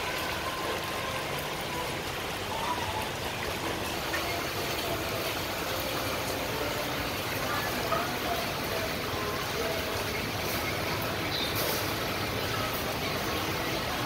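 Steady, even hiss of rainwater running and dripping after a downpour.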